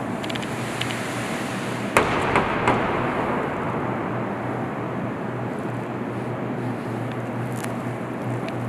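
A sharp bang about two seconds in, quickly followed by two lighter knocks, with a ringing tail. Underneath is steady background noise with a low hum.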